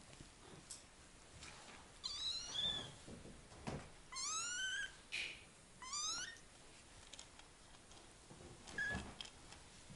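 Kittens meowing: about four high, thin meows, several rising in pitch, the longest about half a second.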